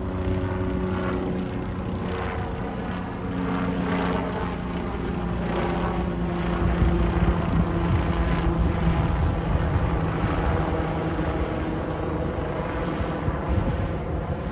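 Helicopter flying overhead: a steady drone from the engine and rotor with a rapid blade chop, growing a little louder about halfway through.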